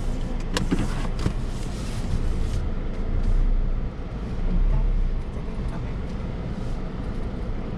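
A car's engine and low road rumble heard from inside the cabin as the car creeps along slowly. There are a few light clicks in the first second or so, and the rumble swells twice midway.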